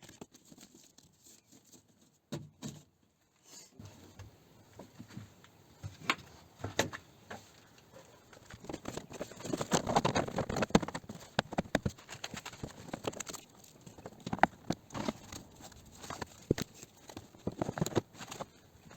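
Irregular clicks, taps and knocks of plastic car trim panels being handled and pressed into place, busiest about halfway through.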